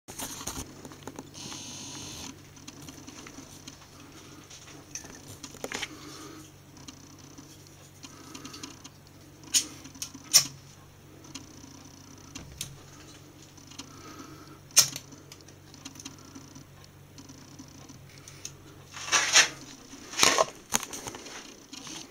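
Handling noise over a steady low hum, with a few sharp clicks and, near the end, a longer scratching burst and another click as the tissue paper stuffed in a leather boot is set alight; the hum stops at about the same time.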